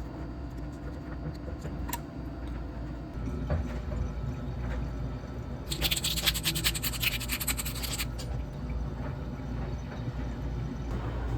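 Rapid scrubbing or scraping strokes for about two seconds near the middle, over a low steady hum, with a few light clicks.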